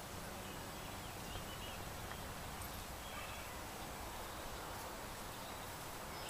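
Steady outdoor background noise with a low rumble and a few faint, short bird chirps.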